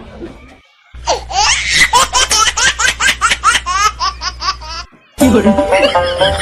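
A high-pitched laugh sound effect, rapid hee-hee strokes at about five a second, cuts in about a second in and stops abruptly after about four seconds. Background music then starts near the end.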